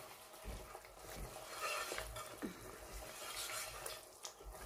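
Silicone spatula stirring chicken pieces in a thick curry sauce in a non-stick pot, giving soft, irregular scrapes over a faint sizzle as the sauce cooks down to dry off its water.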